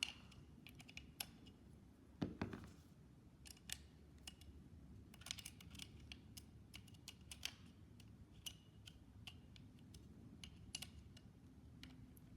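Quiet, scattered small clicks and taps of metal parts and a hand tool as screws are tightened on an AR rifle attachment, with one louder knock about two seconds in.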